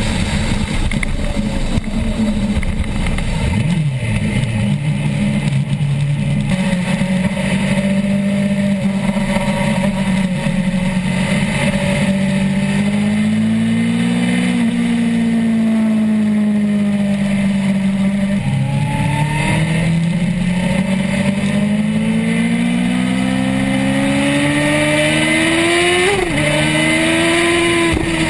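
Suzuki GSX-R1000's inline-four engine at high revs, heard onboard with heavy wind rush. The pitch climbs and falls through long pulls and gear changes, dropping sharply about four seconds in and again near the end.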